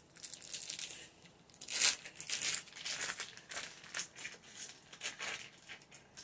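Foil wrapper crinkling and tearing as it is peeled off a block of cream cheese by hand, in irregular crackles with the loudest about two seconds in.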